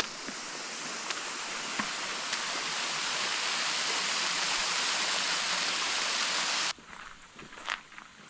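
Shallow mountain stream rushing over a stone ford and spilling down a small drop, growing louder over the first few seconds. It cuts off suddenly near the end, leaving scattered footsteps on a gravel path.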